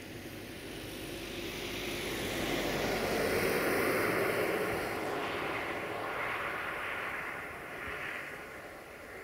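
A passing vehicle's noise swelling to a peak about three to four seconds in, then slowly fading away.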